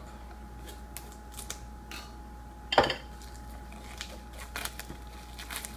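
A knife cutting the seal on a small cardboard box, and the box being worked open by hand: a run of short scratches and clicks, with one louder, brief sound about three seconds in.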